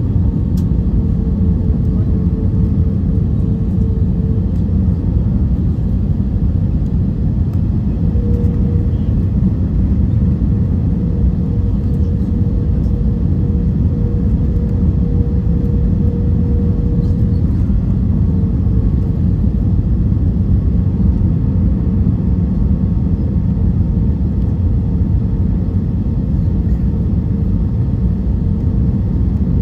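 Airbus A320 cabin noise from a window seat: a steady low rumble of engines and airflow, with a thin hum tone over it that drops out briefly a few seconds in.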